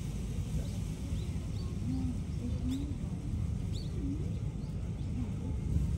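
Small birds chirping: a scattered handful of short, high chirps over a steady low background rumble.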